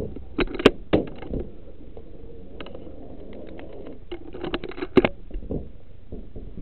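Handling noise from a rifle and its scope-mounted camera: irregular knocks and rustling, with two sharp clicks, one just under a second in and one about five seconds in.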